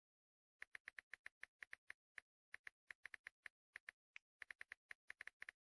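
A faint text-typing sound effect: a quick, uneven run of identical short clicks, about five or six a second, that starts about half a second in, with brief gaps between bursts.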